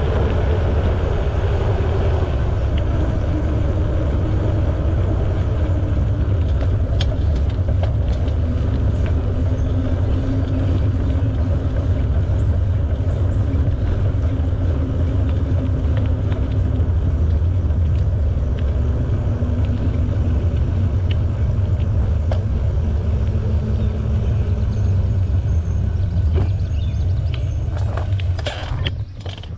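Steady low wind rumble on the microphone with rolling tyre noise from a bicycle being ridden. It quietens near the end, with a few sharp clicks.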